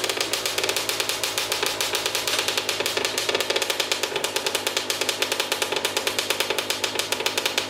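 2005 Yamaha YZ85's 85cc single-cylinder two-stroke engine idling through an FMF PowerCore 2 shorty silencer: a steady, rapid run of exhaust pops, dumb loud.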